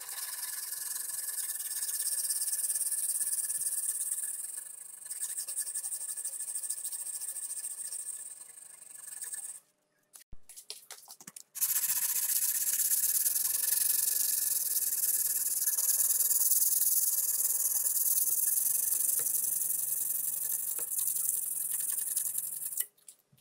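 Sandpaper wrapped around a stick, rubbed back and forth by hand along a steel Japanese kitchen knife blade: a steady, high, scratchy hiss. It breaks off briefly about ten seconds in, then goes on.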